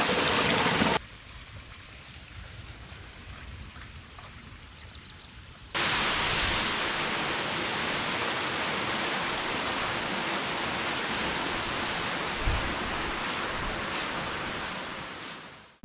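Steady rush of water, in edited clips that cut sharply about a second in to a quieter stretch, then back to a louder, even rush just before 6 s, which fades out at the end.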